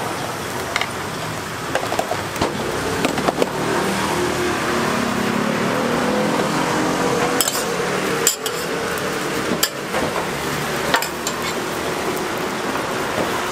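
Egg crepes frying on a flat steel griddle with a steady sizzle, while metal tongs and a spatula clink and scrape against the griddle in a string of sharp clicks and knocks.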